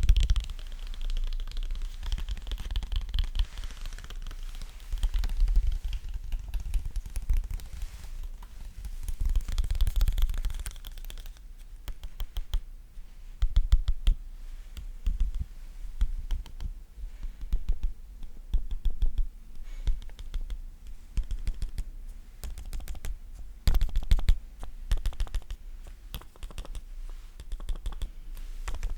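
Close-up ASMR fingertip tapping and clicking in quick, irregular runs. The first stretch is denser and scratchier; after that the taps come sparser and sharper, with a louder flurry near the end.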